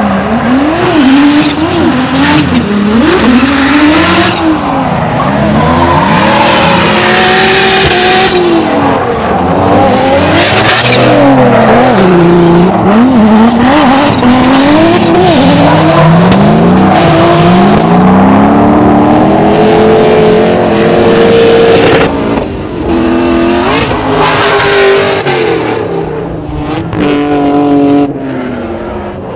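Drift car engine revving hard, its pitch swinging up and down again and again as the throttle is worked, over the hiss and squeal of tyres sliding. It drops back briefly twice toward the end.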